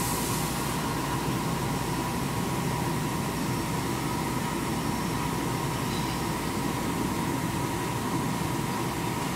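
Enclosed CNC machine running steadily with its coolant flowing while an abrasive brush hone finishes the inside of a rifle chamber. It is a constant hum with a thin, steady whine.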